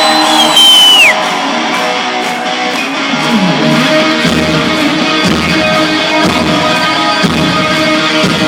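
Rock music led by electric guitar. A high bent guitar note slides down and dies away about a second in, then bass and drums come in with a steady pulse about four seconds in.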